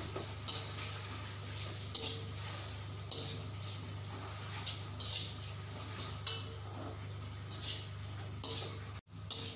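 Metal spatula scraping and stirring grated coconut and spice paste around a dry metal wok, in short irregular scrapes about every second, over a steady low hum. The sound cuts out for an instant near the end.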